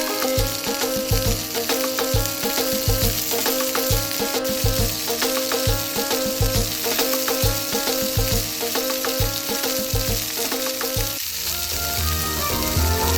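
Food sizzling and crackling as it cooks, under background music with a steady beat of about two thumps a second. The music changes about eleven seconds in.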